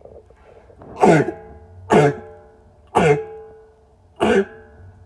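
A man coughing hard four times inside an empty 55-gallon steel barrel, the drum ringing briefly after each cough. The barrel's smell set him off.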